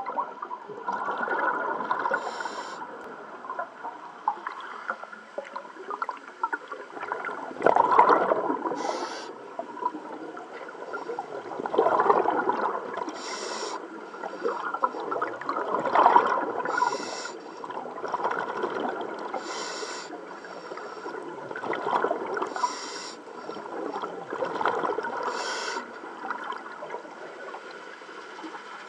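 A diver breathing underwater through a regulator: about seven breaths, each a loud gurgling rush of exhaled bubbles followed by a short high hiss of air.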